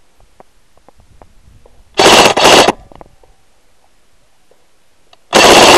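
Airsoft gun fired in two full-auto bursts close to the microphone, loud enough to overload it. The first burst comes about two seconds in and lasts under a second; the second starts near the end.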